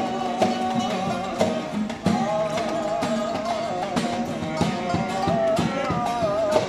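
Bağlama (long-necked Turkish saz) and acoustic guitar playing a folk tune together, with a wavering melody over steady strumming.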